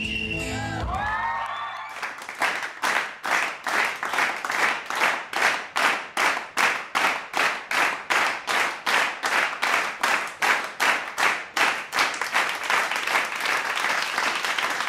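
Guitar-backed music ends in the first second or so. Then an audience claps in unison, a steady rhythm of about two to three claps a second.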